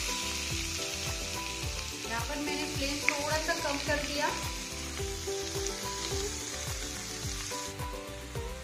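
Grated carrots sizzling as they are tipped into hot ghee with fried almonds in a kadhai. The sizzle cuts off near the end.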